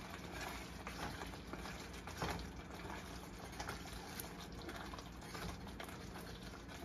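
Wooden spatula stirring a simmering tomato sauce in a nonstick frying pan, with irregular light clicks and taps of the spatula against the pan over the bubbling of the sauce.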